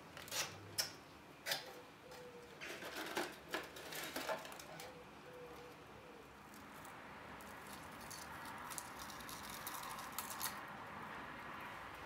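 Hands opening a small box of solar copper-wire fairy lights: a run of sharp clicks and crinkles from the packaging in the first few seconds, then softer, steadier rustling as the coiled wire and solar panel are lifted out.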